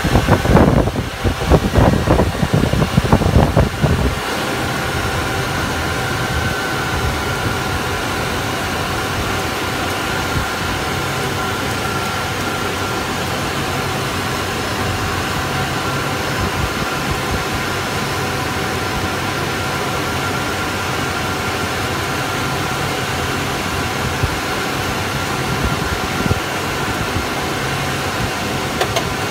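Steady cockpit noise on a KC-135 flight deck with its jet engines at taxi power: an even rush with several steady high whining tones. Some irregular low rumbling in the first few seconds.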